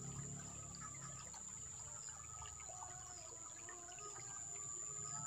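Faint outdoor background: a steady high-pitched whine with scattered short faint chirps over a low hum.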